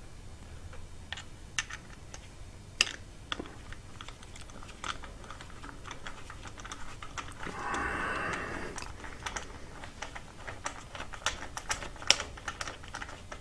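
Scattered light clicks and taps of small metal parts and tools handled by gloved hands while a timing belt is fitted around the engine's pulleys, with a brief rustle about eight seconds in and a run of quicker clicks near the end.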